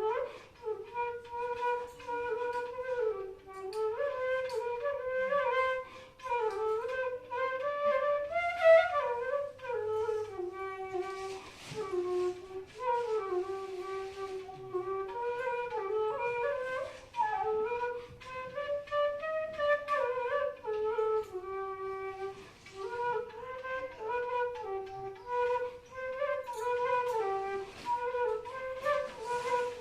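Bansuri, the Indian bamboo flute, playing a slow solo melody in one line, sliding smoothly between notes, with audible breath on some passages.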